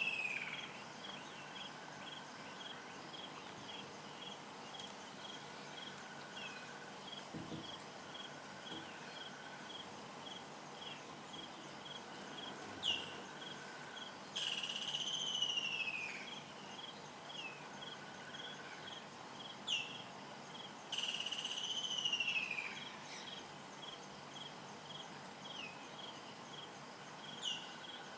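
African bush ambience: insects chirping in a steady, regular pulse, with a bird giving several louder descending whistled calls in the second half.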